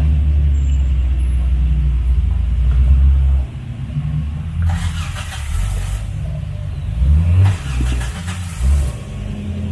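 Off-road vehicle engine with a deep, steady rumble that drops off sharply about three and a half seconds in, then runs unevenly at a lower level. Two spells of hissing noise come over it in the second half.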